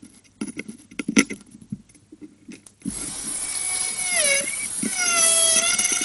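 Porcelain floor tiles clicking and clinking against each other and the floor as they are handled and set down. About three seconds in, a louder sustained sound with gliding, held pitched tones comes in and continues.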